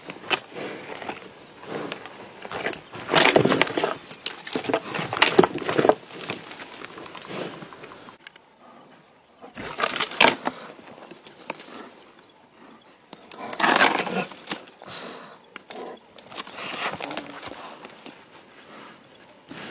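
Lioness growling in irregular bursts while attacking a kudu. The bursts come in loud clusters separated by quieter gaps.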